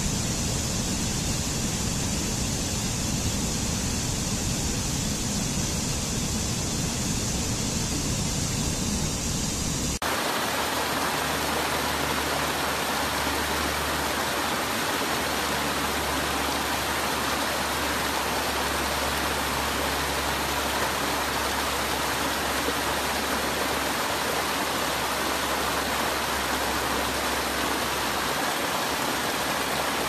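Steady rush of water tumbling over rocks in a stream. About ten seconds in, it switches abruptly to a fuller, more even rush of water spilling over low stone ledges.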